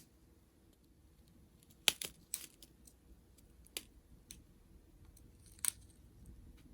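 Small plastic bags of round resin diamond-painting drills being handled and set down, making scattered light clicks and rattles, the sharpest about two seconds in and again near the end.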